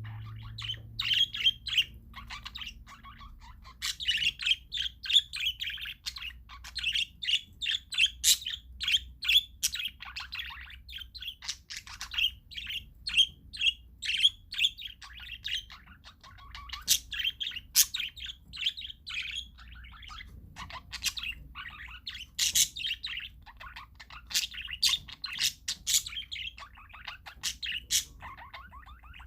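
Parakeets chirping and chattering, a dense run of rapid short calls, several a second, with a few brief lulls.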